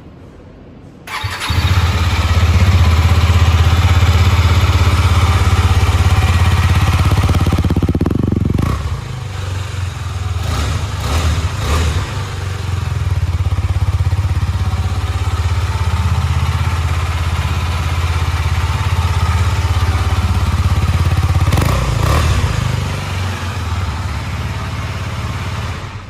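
Husqvarna Vitpilen 250's single-cylinder engine starting about a second in and running through its exhaust. The revs rise and fall about eight seconds in, with a few shorter throttle blips later.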